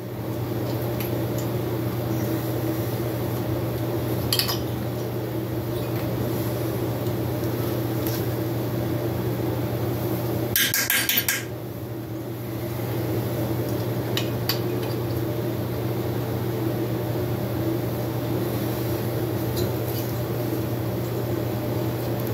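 Metal clinks and clicks of a wrench working the 10 mm cylinder-head bolts on a 1970 Harley-Davidson Leggero's 65cc two-stroke engine as they are loosened, with a quick run of clicks about halfway through. A steady low hum runs underneath.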